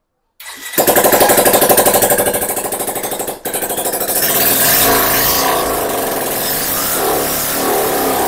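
Bajaj Pulsar 150's single-cylinder twin-spark engine, freshly rebuilt with a new block kit, cranked on the electric starter and catching at the first try, then running loud with a fast even pulse and no silencer fitted. Its note dips briefly about three and a half seconds in, then runs on.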